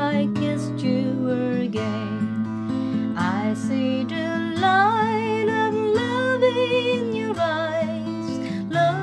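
Acoustic guitar playing slow chords with changing bass notes. A voice sings long held notes with vibrato over it through the middle.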